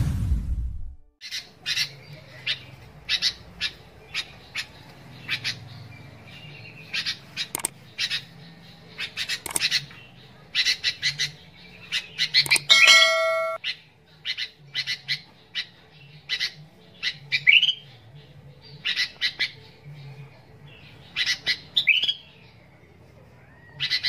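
Caged sooty-headed bulbul calling in short, sharp chirping notes, several in quick succession, then a pause, over and over, with a low steady hum behind. A brief ringing chime sounds a little past halfway.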